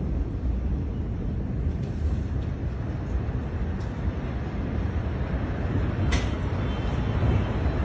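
Steady low rumble in the aftermath of a huge explosion, with a short sharp crack about six seconds in.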